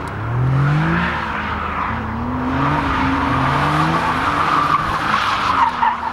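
Nissan 370Z's 3.7-litre V6 revving up and down while the car drifts in circles, its rear tyres spinning and squealing continuously on the tarmac. The squeal grows louder toward the end.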